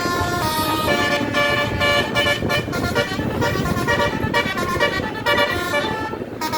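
Basuri telolet 36-note bus horn playing a fast melody of short notes stepping up and down in pitch, over the steady rumble of the bus.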